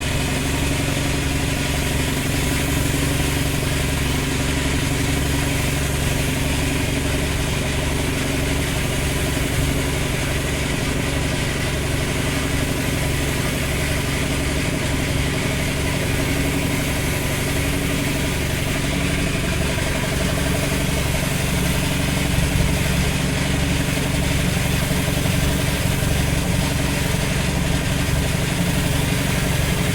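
A motor running steadily with a constant low hum and an even hiss, unchanging throughout.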